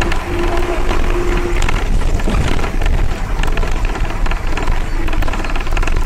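Steady, loud rumble and road noise of a moving vehicle heard from on board. A held tone sounds for about the first second and a half.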